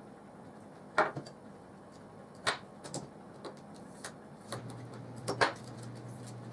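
Knife blade prying and scraping at the edge of a Samsung tablet battery pack: a handful of sharp scraping clicks at irregular intervals, the loudest about a second in and near the end.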